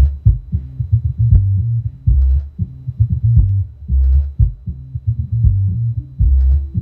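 Music played through an 8-inch subwoofer behind an active low-pass filter: only the bass notes come through, a pulsing bass line with a steady beat, while nearby objects buzz and rattle from the vibration.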